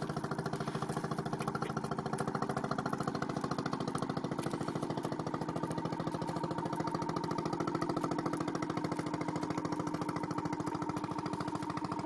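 Boat engine running steadily with a fast, even pulse.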